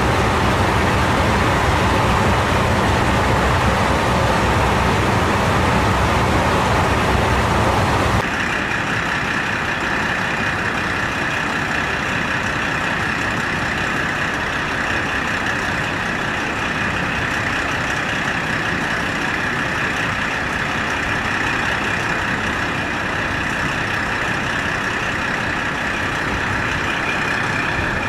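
Diesel railcars idling in a station. Close to a KiHa 40-series railcar's cab, its original JNR-era DMF15HSA diesel engine gives a loud, low idle. About eight seconds in, the sound switches abruptly to a quieter, steady idle with a high, even hum over it.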